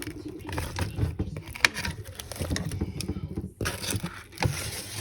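Kitchen handling sounds while spices go into a pot of vegetables: irregular small knocks, scrapes and rustling.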